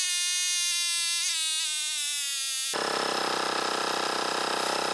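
Cordless air compressor's electric motor running under load with its air outlet plugged, sped up. Its pitch sinks slowly as the battery pack's voltage sags under the load test. About three seconds in, an abrupt jump in the footage changes it to a denser, steadier motor run.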